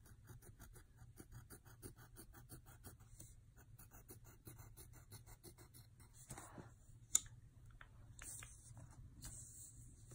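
Pencil scratching faintly on paper in quick, even back-and-forth strokes, about five a second, drawing a zigzag row of sharp teeth. Looser strokes follow, with one sharp tap about seven seconds in.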